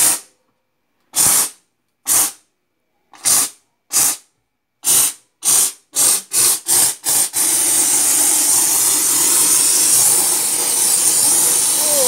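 Kärcher handheld steam cleaner spitting steam from its nozzle in about a dozen short spurts that come faster and faster, then hissing steadily as the steam flows without a break past the halfway mark.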